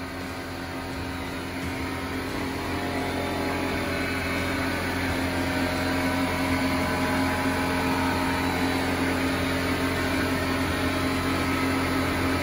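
Sustained droning tones in the background music, swelling slowly louder.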